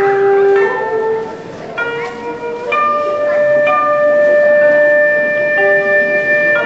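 Slow instrumental background music of long held notes, a new note coming in every second or two.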